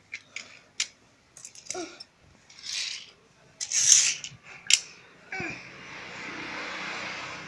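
Small die-cast metal toy cars clicking sharply as they are set down and pushed on a tiled floor, between short hissing swishes. A steady rushing hiss sets in about five seconds in.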